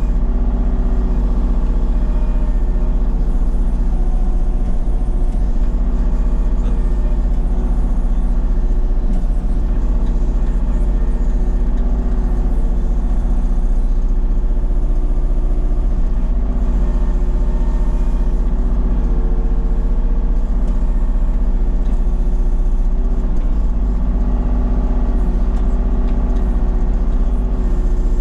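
Kubota KX033-4 mini excavator's diesel engine running steadily while the boom and bucket work through brush, its pitch shifting a little now and then.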